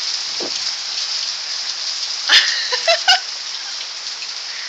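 Hail and rain falling steadily on surfaces, an even hiss of many small hits. Three short, sharp pitched sounds come in quick succession just past the middle.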